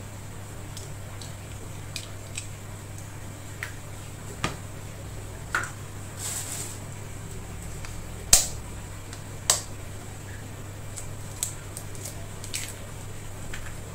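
Duck eggshells being tapped and cracked open with scissor blades over a plastic bowl: scattered sharp clicks and small cracks, the loudest about eight seconds in, over a steady low hum.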